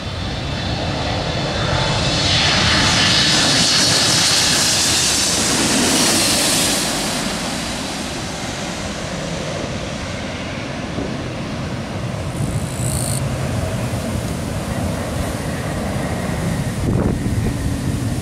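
Twin-engine jet airliner on final approach passing low overhead: the engine whine and rush swell to a peak a few seconds in, then ease off as the plane moves away toward the runway.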